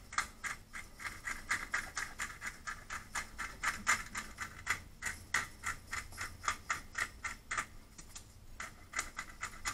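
Hand-turned pepper mill grinding peppercorns: a steady run of quick grinding clicks, about three or four a second, with a short pause near the end before it starts again.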